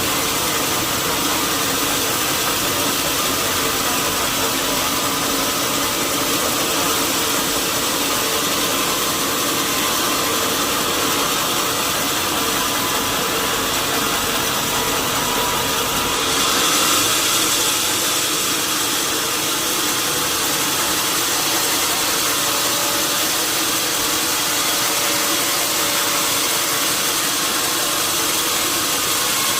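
Sawmill machinery running steadily: a loud hiss over a constant motor hum. About halfway through, the hiss turns brighter and briefly a little louder.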